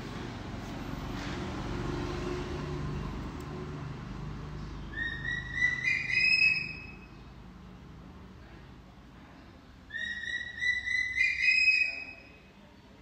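Infant macaque giving two bouts of shrill, high-pitched calls, each about two seconds long and rising slightly, the first about five seconds in and the second near the end.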